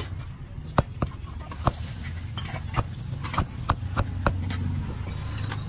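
Meat cleaver chopping grilled pork on a round wooden chopping board: about eight sharp, irregularly spaced knocks, over a steady low hum.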